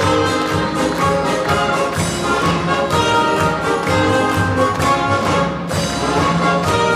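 Orchestral music with strings and brass, played live to a steady beat.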